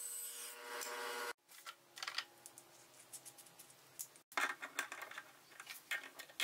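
A bandsaw runs steadily while cutting a block of white oak, then cuts off suddenly about a second in. After that come scattered clicks and short metallic rattles as a hole saw and its arbor are handled over their plastic case and then fitted into a drill press chuck. The loudest clicks fall shortly after the middle.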